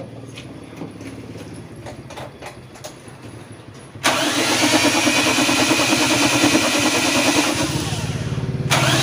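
Faint clicks, then about four seconds in the Toyota Kijang 7K carburettor engine is cranked hard on its starter with the spark plugs out, turning over steadily with a loud hiss that dips briefly near the end. The engine is cranked without load like this to blow the carburettor cleaner and loosened carbon residue out of the cylinders.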